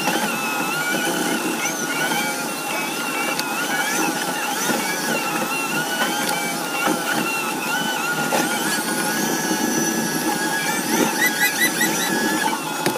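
John Deere 6155R tractor's six-cylinder diesel running steadily, heard from inside the cab as the front loader works.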